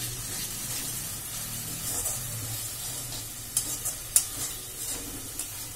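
Tomato masala sizzling in a steel kadai as a spatula stirs and scrapes through it, being fried down (kasha) over a low flame. A few sharp clicks of the spatula against the pan come after about three and a half seconds, the loudest about four seconds in.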